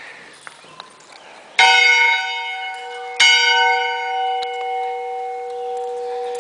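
Church bell tolled twice, the strokes about a second and a half apart, each ringing on and fading slowly with a gentle wavering in its hum.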